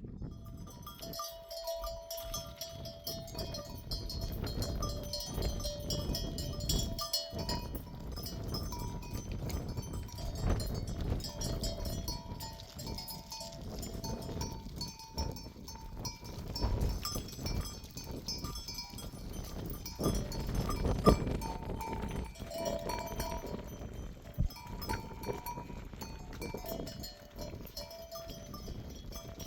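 Bells on a grazing flock of sheep clinking and clanking continuously as the animals move, many bells ringing over one another.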